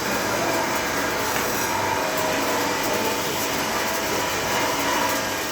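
Stick (arc) welding arc, a steady frying crackle that holds unbroken as a weld bead is run on a round steel bar.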